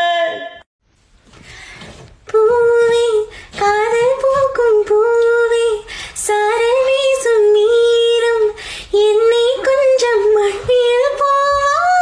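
A woman's long held sung note ends about half a second in. After a short near-quiet gap, a female voice sings a repeating phrase of held, stepping notes, with short breaks between phrases.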